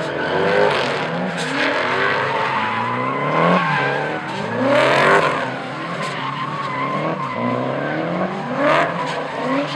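Two drift cars sliding in tandem: engines revving up and down over and over while the tyres squeal with a steady high whine. Two louder surges come about halfway and near the end.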